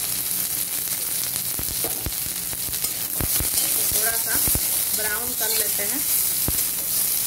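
Sliced onion and garlic cloves sizzling in hot mustard oil in a kadhai, with a steady frying hiss. A metal spatula stirs them, clicking and scraping against the pan.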